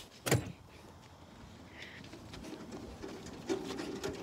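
A single sharp knock, then a golf cart pulling away across grass, its motor making a low, rough buzzing whir that comes up in the last second or so.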